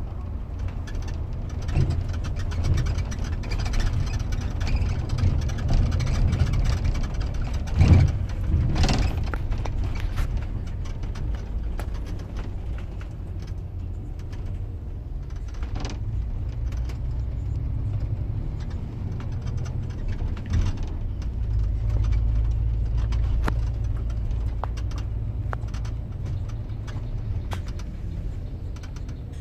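Double-decker bus driving through town, heard from inside: a steady low engine and road rumble with rattles, and a louder thump about eight seconds in.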